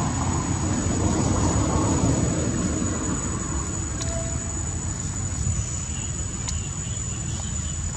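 A low rumble, loudest over the first few seconds and then easing, with a faint high steady whine throughout.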